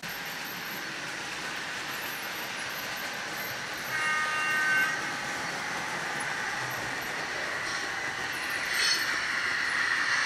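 Bachmann 00 gauge Deltic model's DCC sound decoder playing a running diesel engine through its small on-board speaker, steady and slowly getting louder. About four seconds in a horn sounds for about a second, and a short sharp sound comes near the end.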